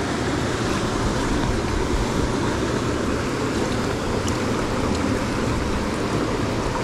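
Water of a small mountain stream running over stones, a steady, even rush close by.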